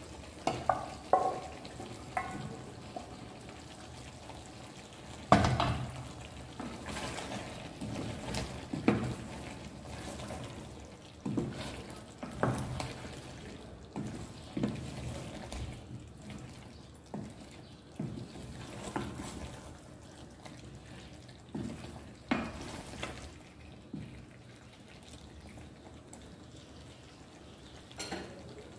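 Food being stirred in a cooking pan over a low frying sizzle, the spoon knocking against the pan now and then, once sharply about five seconds in.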